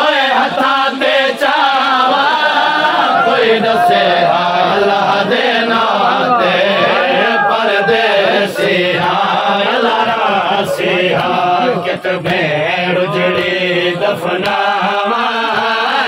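Men's voices chanting a noha, a Shia lament, in a long, wavering, drawn-out melody without clear words.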